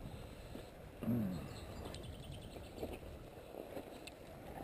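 Steady low rush of a shallow river. About a second in comes a brief falling grunt-like voice sound, followed shortly by a quick run of faint clicks.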